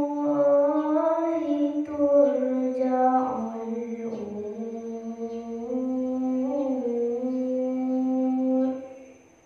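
A girl's voice reciting the Quran in tarannum, the melodic chanted style: one long ornamented phrase of held notes that glide and waver in pitch, stopping near the end.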